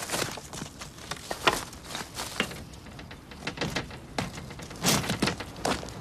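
A quick, irregular run of knocks and clicks, the loudest about one and a half seconds in and around five seconds in.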